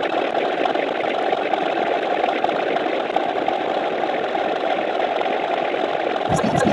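A steady, dense mechanical running sound like a motor. Near the end it switches to a different sound with a fast regular pulse.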